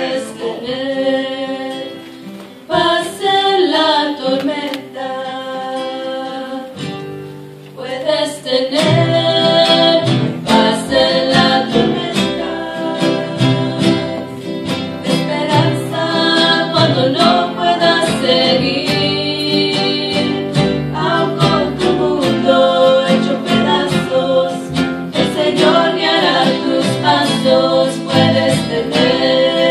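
Female vocal trio singing a Spanish-language gospel song together into microphones over instrumental accompaniment. About eight seconds in, the accompaniment fills out with low notes and the music grows louder.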